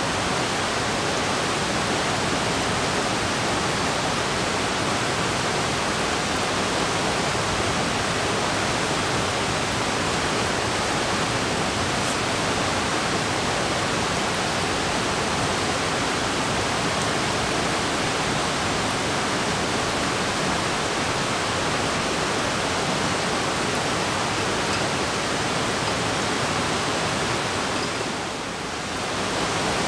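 A steady, even rush of water, such as rain or a nearby stream, that dips briefly near the end.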